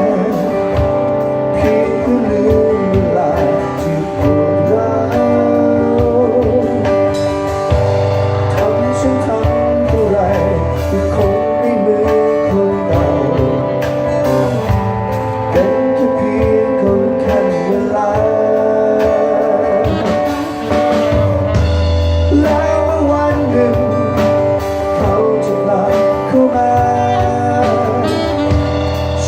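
Band music led by guitar over a steady bass, with a wavering melody line carrying on without a break.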